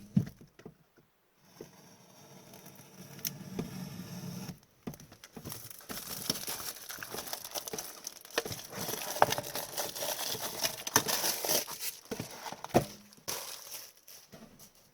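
Plastic wrapping crinkling and tearing as a sealed hockey-card hobby box is opened, with dense crackling from about five seconds in.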